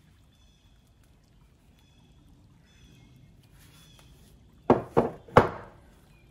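Heavy cast metal ingot set down on a wooden workbench: three solid knocks in quick succession about five seconds in. Before them, a faint rustle of the gloved hand handling the bar.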